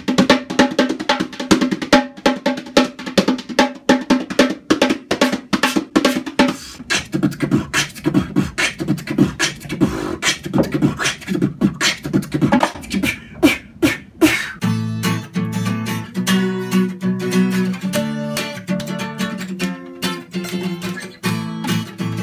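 Beatboxing and hand-drum strokes playing a fast groove together. About two-thirds of the way in, acoustic guitar chords come in strongly over the rhythm.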